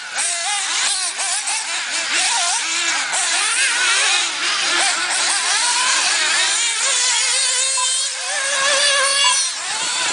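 Several 1/8-scale nitro RC buggy engines whining and revving as the cars race round a dirt track, their pitches rising and falling over one another. Near the end one engine holds a steady high note for about a second.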